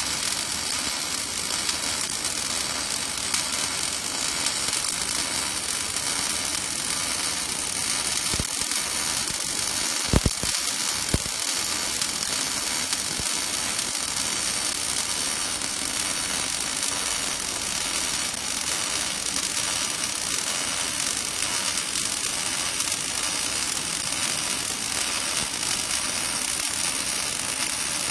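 Robotic laser welding station at work, giving a steady, even hiss, with a few sharp clicks about ten seconds in.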